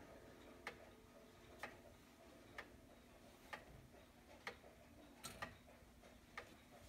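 Colonial-style triple-chime grandfather clock ticking steadily, faint and even at about one tick a second.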